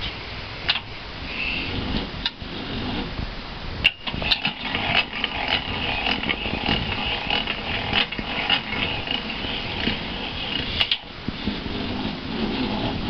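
Hobart H-600 60-quart mixer running, a steady mechanical whir with a higher whine over it, broken off briefly with a click about four seconds in and again near eleven seconds.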